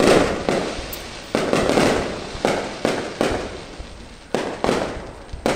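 Aerial firework shells bursting in a rapid, irregular series of about ten loud bangs, each trailing off before the next.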